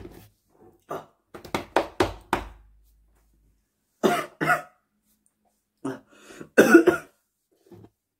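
A man coughing in several short fits, a quick run of coughs about two seconds in and more near the end, his throat irritated by very spicy noodles.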